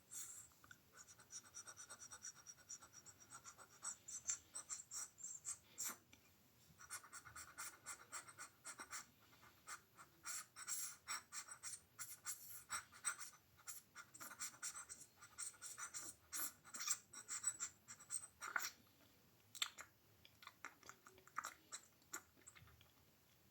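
ASMR mouth sounds made close to the microphone: quick, irregular runs of small clicks and smacks from the lips and tongue, with brief lulls.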